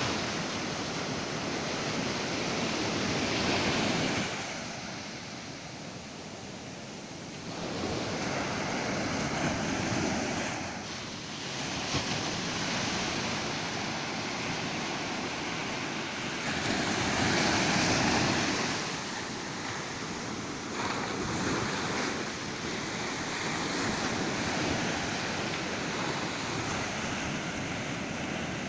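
Ocean surf breaking on a beach, with waves rushing in and washing back so that the sound swells and ebbs every few seconds.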